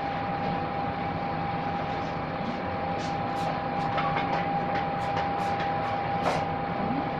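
Steady background hum of a restaurant room with a thin steady tone in it, and a scatter of short light clicks from about three seconds in.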